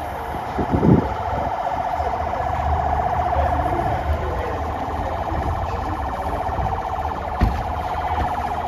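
Vehicle siren sounding one steady tone with a fast warble, over the low rumble of engines; a short thump comes about seven seconds in.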